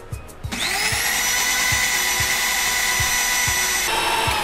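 Electric mixer grinder (blender) switched on about half a second in, its motor whine rising as it spins up. It runs steadily while grinding a wet paste of soaked melon seeds with fennel and spices, then is switched off near the end, the whine falling as the motor winds down.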